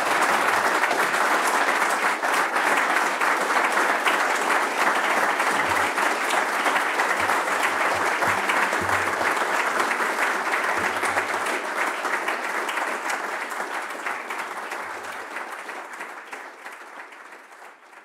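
Audience applauding steadily, a dense patter of many hands clapping, fading out over the last several seconds.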